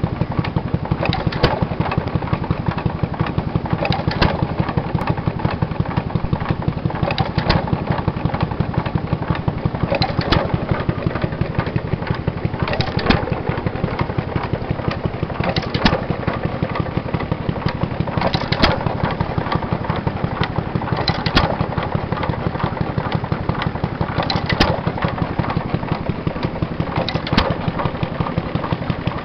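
Amanco open-crank hit-and-miss stationary engine running, its mechanism making a rapid, even clatter as the flywheels spin, with a sharp firing stroke about every three seconds.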